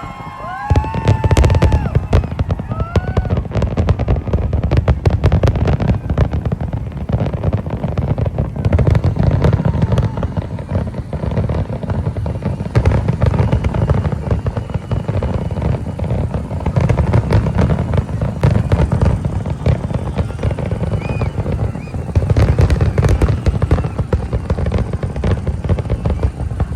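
Fireworks display: a dense, continuous barrage of bangs and crackling with deep booms, swelling and easing in waves. A few short rising-and-falling whistles sound in the first few seconds.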